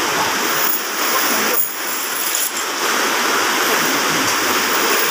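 Fast river water rushing over rocks in rapids: a steady, loud rush of water.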